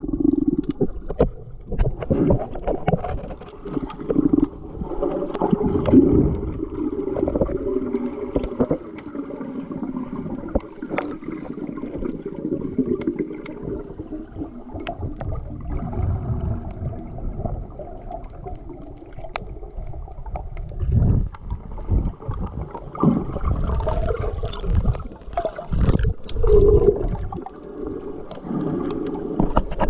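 Muffled sloshing and gurgling water with an uneven low rumble, swelling louder at times, and scattered sharp clicks and knocks throughout.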